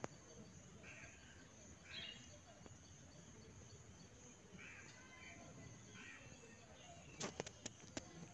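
Near silence: faint outdoor ambience with a few faint, short bird chirps, then a brief run of sharp crackles of dry leaf litter near the end.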